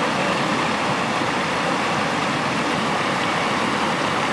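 Shallow mountain river rushing over rocks and small rapids, a steady, even rush of water.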